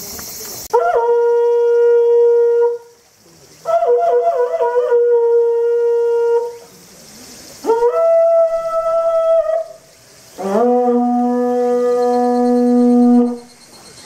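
Conch-shell trumpet (horagai) blown in four long blasts of about two to three seconds each, with short breaths between them. The third blast is pitched a little higher and the last about an octave lower.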